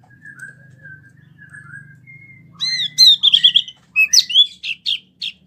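A wambi mini songbird singing: a few soft whistled notes, then about halfway through a loud burst of sharp chirps and a quick trill.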